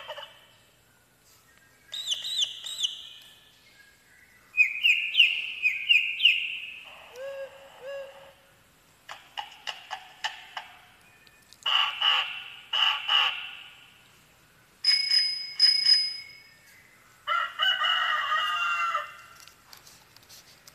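A children's farm sound book's button module playing its recorded farm sound effects through its small speaker, about seven short clips one after another with pauses between them: animal and bird calls, and a ringing tone around the middle.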